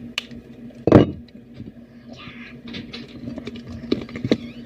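Handling noises from objects being moved and set down: a thump about a second in, then a short rustle and scattered small clicks.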